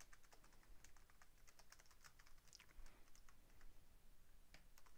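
Computer keyboard being typed on: a faint, irregular run of key clicks.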